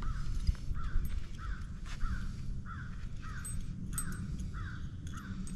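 A bird calling over and over in a steady rhythm, about one and a half to two calls a second, over a low steady rumble.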